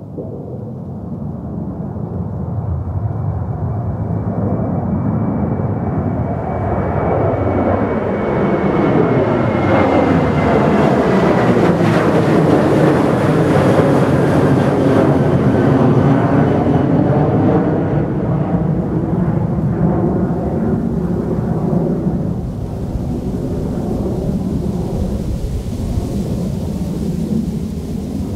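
Boeing 737-800's CFM56-7B turbofan engines at takeoff thrust as the jet climbs out past the listener: a steady jet rumble that builds, is loudest about halfway through and then eases as the plane climbs away, with a high fan whine sliding slightly down in pitch.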